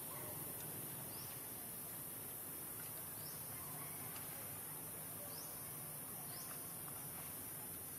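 Outdoor ambience of a steady, high insect drone, with a few short, high rising chirps scattered through it.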